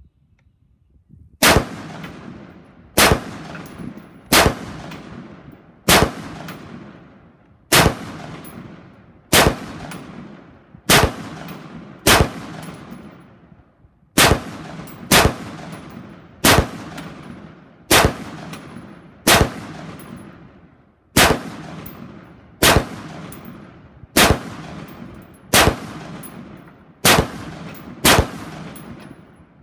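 Brownells XBRN16E1 retro AR-15-pattern rifle in 5.56 NATO fired semi-automatically. About twenty shots come at a steady pace of roughly one every one and a half seconds, starting about a second and a half in, each a sharp crack with an echoing tail.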